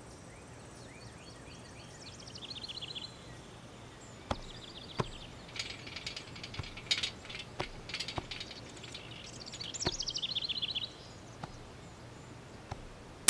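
A handful of sharp clicks and rattles at a metal gate, with a bird trilling twice in the background, once early and once near the end.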